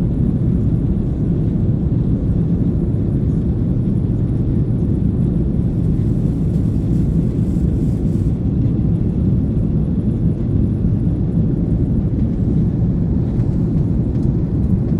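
Steady low rumble of a jet airliner heard from inside the cabin, engines and airflow drone without change.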